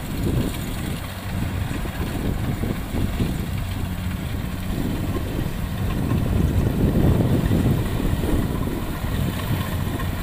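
Rice combine harvester engines running steadily, with an uneven low rumble that grows a little louder midway, as the machines work through soft, boggy paddy mud.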